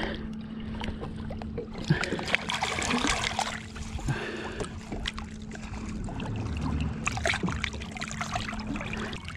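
Lake water sloshing and splashing around a hand and a largemouth bass held by the lip at the surface, as the fish is moved through the water to revive it before release. A steady low hum runs underneath.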